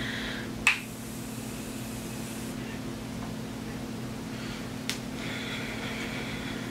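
Bloom Effects Tulip Dew Mist spray can sprayed at the face. A click comes about a second in, then a faint fine hiss of mist for about two seconds that cuts off abruptly. A single sharp click follows near the end.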